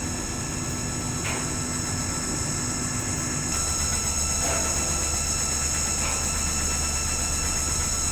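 Washing machine motor running with a steady mechanical hum and a high whine; about three and a half seconds in, a deeper low hum sets in and it gets a little louder, with a few faint knocks.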